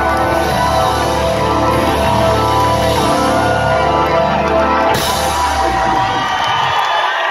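Live rock band ending a song: a held chord with electric guitar, then a final hit about five seconds in that rings out and fades. Crowd whoops and cheers rise near the end.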